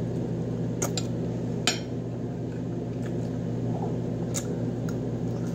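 Eating sounds: a few sharp clicks and crunches as a piece of chicken is bitten off a metal fork and chewed, over a steady low mechanical hum.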